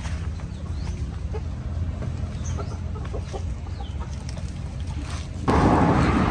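Chickens clucking, with small birds chirping, over a steady low rumble. About five and a half seconds in, a much louder rushing noise starts abruptly.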